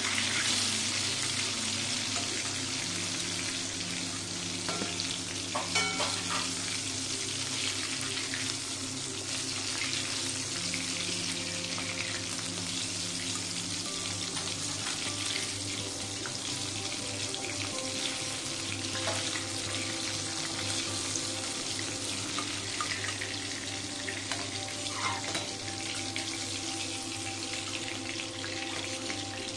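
Turmeric-marinated fish pieces deep-frying in hot oil in a steel kadai, a steady sizzle. A metal spatula scrapes and clicks against the pan now and then as the pieces are turned.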